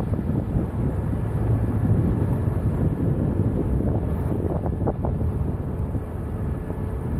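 Wind buffeting the microphone in a steady low rumble, over the running of a Renault Koleos SUV's engine as it drives off-road on sand.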